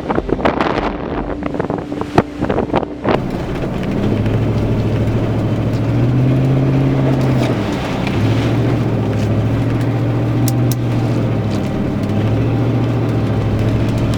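A car driving. Over the first few seconds there is a rapid patter of sharp clicks and knocks; then the engine hum takes over, with its pitch stepping up and down a few times as it accelerates and shifts.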